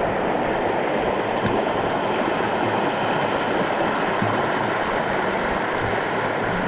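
Small waterfall: shallow water cascading and splashing down sloping bedrock in a steady rush.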